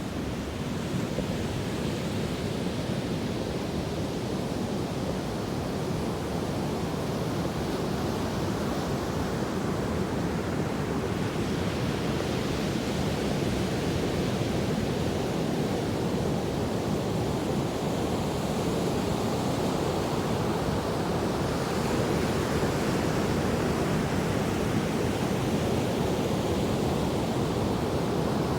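Sea waves washing onto the shore: a continuous rushing surf that swells slightly as sets of waves come in.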